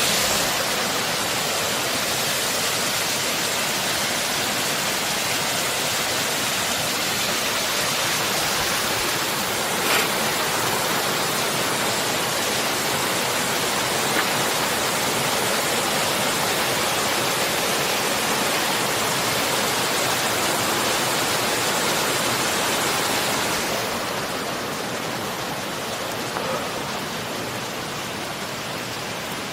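Steady rush of flowing water from a mountain stream or falls. It eases and sounds duller about three-quarters of the way through.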